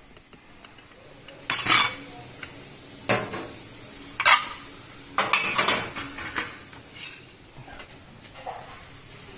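Crockery plates, a glass and cutlery clattering and clinking as a plastic canteen tray is unloaded onto a metal counter. There are sharp clatters about a second and a half in, again around three and four seconds, a quick run of them after five seconds, and a fainter one near the end.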